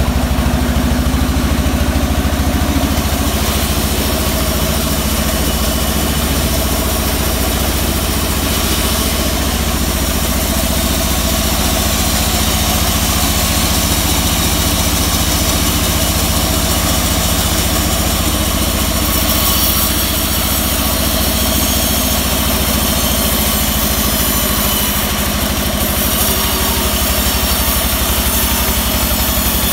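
Band sawmill running steadily with no cut under way, its drive giving a constant low hum, with a couple of brief brighter hissy stretches in the last third.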